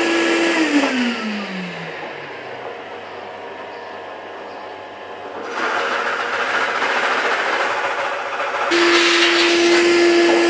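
Shop vacuum running with a steady whine. It is switched off about half a second in, and its motor winds down in a falling pitch. From about halfway through, a pillar drill's bit bores with a rough grinding noise into a whitewood block to make a tea-light hole, and near the end the vacuum is switched on again with the same whine.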